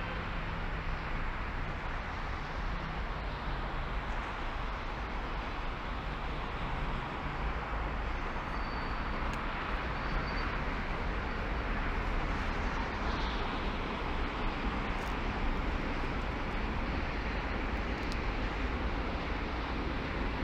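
Steady road noise of a car driving: tyre and engine noise with a low rumble, and no sudden events.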